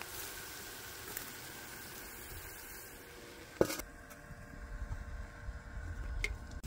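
Chicken sizzling on the cooking plate of a portable tabletop grill, a steady hiss. About three and a half seconds in there is one sharp clank, and the sizzle then gives way to low wind rumble.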